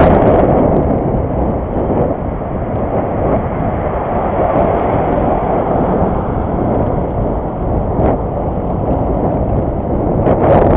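Wind buffeting the microphone of a bicycle-mounted camera while riding, a loud steady rumble, with a few brief clicks or rattles near the end.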